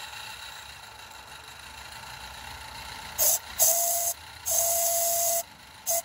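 Cab-mounted DJB Engineering manual steam whistle on a Roundhouse Katie live-steam locomotive, blown in four short blasts from about three seconds in. The first is brief and mostly hiss. The others each sound one steady note over loud steam hiss, the longest lasting about a second. Underneath runs the steady hiss of the locomotive running in steam on its stand.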